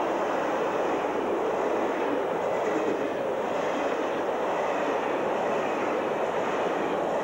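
Freight train wagons rolling past close by: a steady, loud rush and rattle of wheels on the rails.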